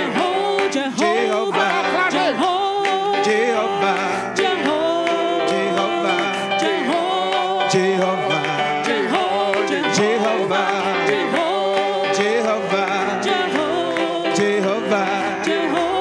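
Live church praise music: singers with a band of keyboard and drums, held over a steady beat.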